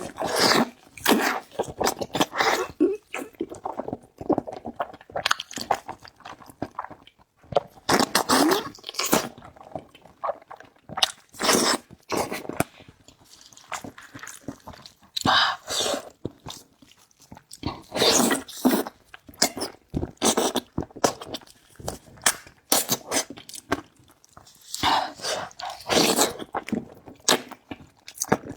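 Close-miked eating sounds: chewing and biting in irregular bursts of about a second each, with short pauses between.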